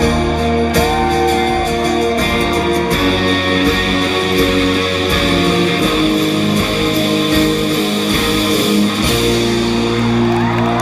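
Live rock band playing an instrumental passage, electric guitars ringing over sustained chords with bass and drums, without vocals.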